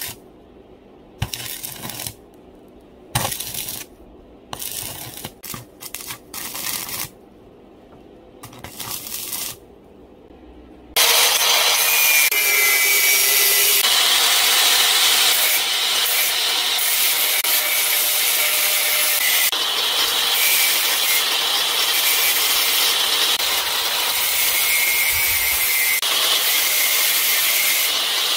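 Stick arc welding on steel rods, crackling in about six short bursts of a second or so each during the first ten seconds. Then, about eleven seconds in, an angle grinder starts and runs continuously, grinding the steel at the welds.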